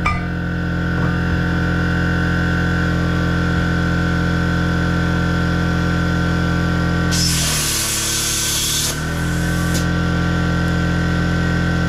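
Steady mechanical hum of a running machine. About seven seconds in, a loud hiss lasts roughly two seconds while the hum dips and wavers, then the hum settles back.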